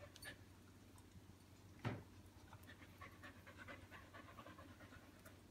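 A dog panting quietly, with one sharp knock about two seconds in.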